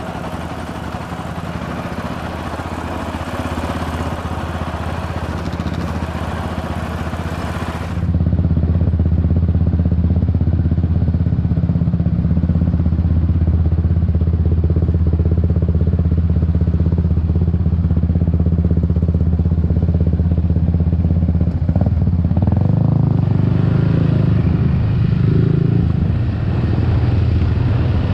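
Off-road engine running under way on a dirt trail, first from the Yamaha Raptor 700R quad's single-cylinder engine. About 8 s in the sound cuts to another machine's engine, louder and steadier with less treble, whose note shifts a little near the end.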